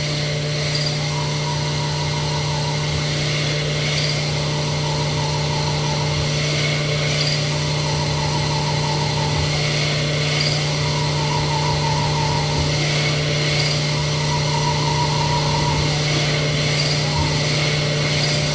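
Sunnen SV-10 honing machine running on auto dwell, its diamond hone stroking up and down in an engine cylinder bore: a whirring cycle repeats about every three seconds over a steady machine hum.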